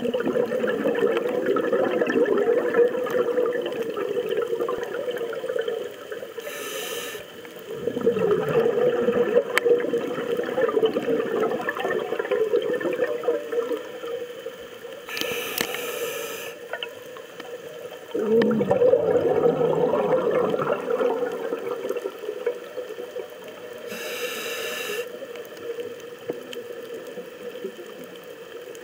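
A scuba diver breathing through a regulator underwater: long stretches of bubbling as each breath is exhaled, broken about every eight to nine seconds by a short hiss of inhalation.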